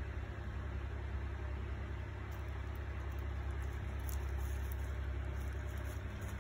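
Steady low machine hum, even throughout.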